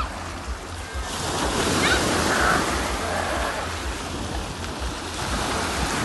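Sea surf washing in, swelling about a second in and easing off again, with wind buffeting the microphone.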